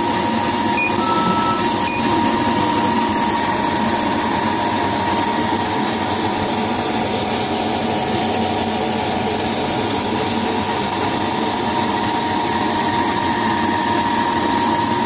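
Leather laser cutting machine running: a steady mechanical whir with a constant tone, and a few short higher tones about one and two seconds in.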